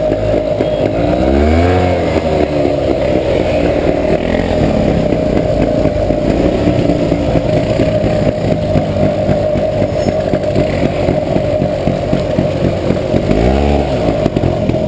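Off-road motorcycle engine running while riding, its pitch rising and falling with the throttle near the start and again near the end, with a steady rumble in between.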